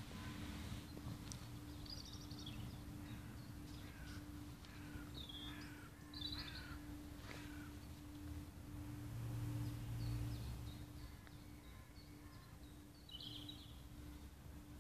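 Wild birds calling: a run of short chirps and quick falling calls through the first half, another burst near the end. Underneath, a faint steady hum and a low rumble that swells briefly about two-thirds through.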